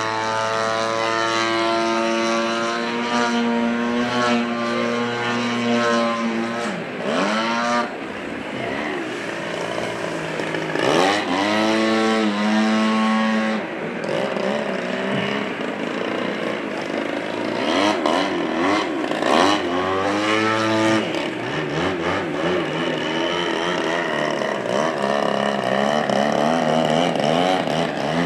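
Extreme Flight Extra NG 91" RC aerobatic plane with a GP 76 engine flying overhead. The engine note holds steady for the first several seconds, then swoops up and down in pitch as the throttle changes through the manoeuvres.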